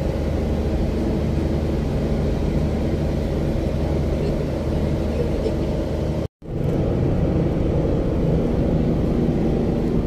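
Steady rumble of a car's engine and tyres heard from inside the cabin while cruising, with a brief dropout about six seconds in.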